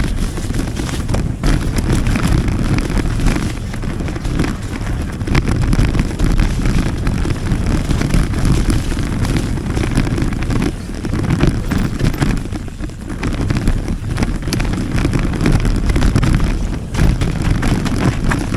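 Wind buffeting the microphone of a handlebar-mounted camera on a moving mountain bike, a loud continuous rumble. Tyres rolling over the dirt and leaf trail and the bike rattling over bumps add many small clicks and knocks.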